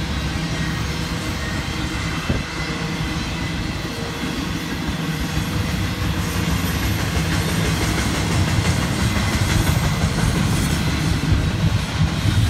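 Double-stack intermodal freight train's container well cars rolling past: a steady rumble of wheels on the rails with a low hum, one sharp clack about two seconds in, growing a little louder in the second half.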